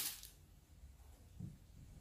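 Knife slicing a cherry tomato on a wooden cutting board: one short, sharp cut at the start, then only faint sounds.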